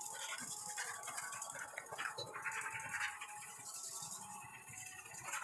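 Faint, irregular clatter of a Honda Shine's drive chain running over its sprockets with the engine started, while kerosene is dripped onto it to loosen dirt and rust.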